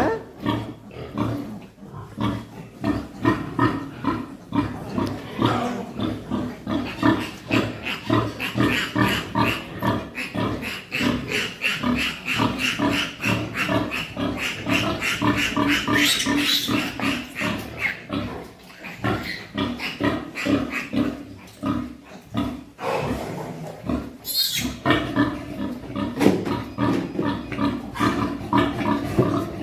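Pigs grunting continuously in quick, overlapping rhythmic grunts, with a couple of brief high squeals, one about halfway through and another near the end.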